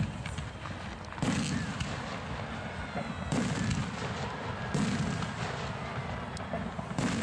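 Aerial fireworks shells bursting overhead: four booms spaced one to two seconds apart, each trailing off in a low rumble.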